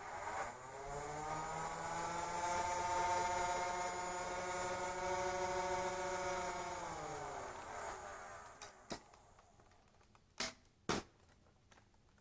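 Nerf N-Strike Elite Rapid Strike's battery-driven flywheel motors whining as they spin up over about a second, running steadily for about six seconds, then winding down with falling pitch. A few sharp clicks follow near the end.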